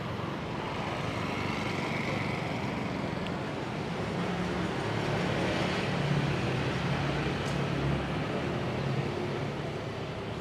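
Street traffic: motor vehicles running past, with one engine's hum growing louder toward the middle and then fading.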